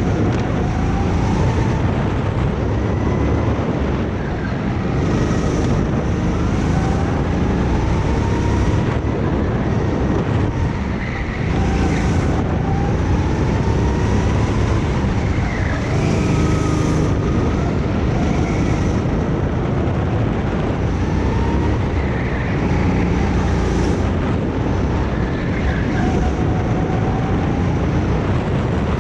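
Go-kart engine running hard, its pitch climbing and dropping again every few seconds as it revs up and comes off the throttle lap after lap.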